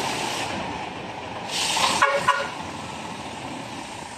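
Two short vehicle-horn toots about two seconds in, just after a brief hiss, over steady background vehicle noise.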